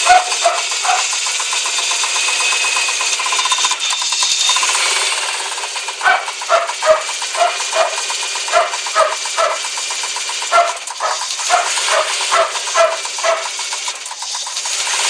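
Car engine running cold with its hydraulic valve lifters knocking, a steady fast ticking over the engine noise. Over it a dog barks in quick runs of short yaps, briefly at the start and again from about six seconds in to near the end.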